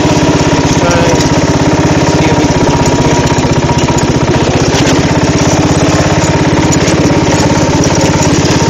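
Craftsman riding lawn mower engine running steadily at a constant speed as the mower drives along, heard close up from the seat.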